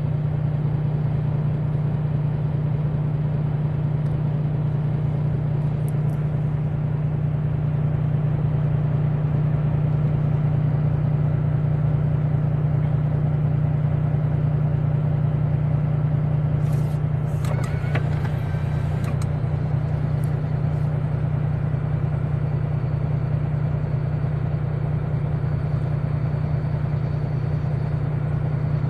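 Heavy truck's diesel engine running at a steady, unchanging pitch, a loud low hum, with a few brief rattles a little over halfway through.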